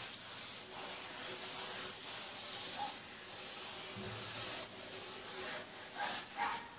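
Chalkboard eraser rubbing across a chalkboard, wiping off chalk writing in repeated strokes: a dry, hissing scrub.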